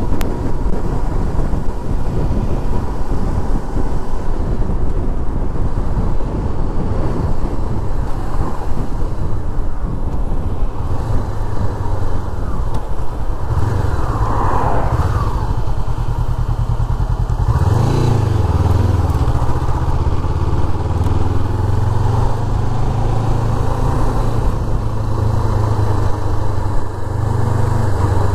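Sport motorcycle being ridden, wind rushing over the microphone at road speed. Part way through, the engine's low steady note comes through more clearly as the bike slows, and its pitch rises and falls twice.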